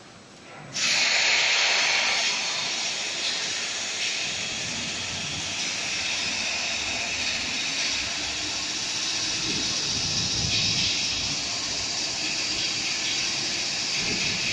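Welding arc of an automatic gantry welding machine giving a steady hiss. It starts abruptly about a second in.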